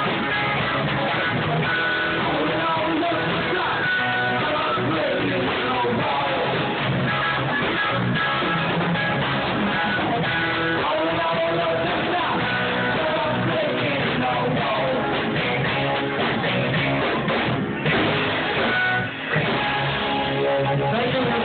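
Live rock band playing, with electric guitar to the fore. The sound dips briefly near the end.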